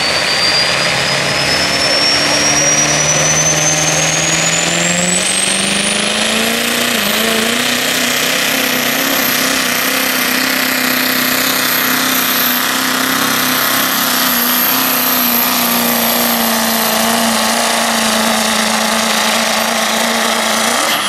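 Pro street diesel pickup truck under full throttle pulling a weighted sled. The engine note climbs over the first several seconds and then holds steady, under a high turbocharger whistle that rises sharply over the same stretch and then holds.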